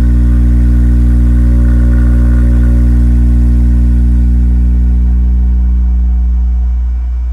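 SLAPZ Audio Oblivion 12-inch dual-voice-coil subwoofer playing a loud, steady 60 Hz test tone in free air, with no enclosure, under high amplifier power. The level eases down a little in the last couple of seconds as the gain is turned back.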